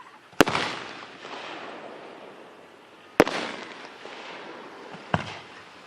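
Fireworks going off: three sharp bangs, about half a second in, near the middle and near the end. The first two trail off over about a second.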